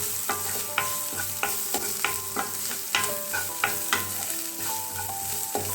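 Onion, ginger, garlic and green chilli sautéing in coconut oil with freshly added ground spices, sizzling steadily while being stirred in the pan. Repeated short scrapes, a few a second, over the sizzle.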